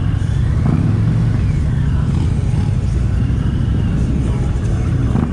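Indian Pursuit motorcycle's V-twin engine running steadily at low speed as the bike rolls slowly, heard from the rider's seat.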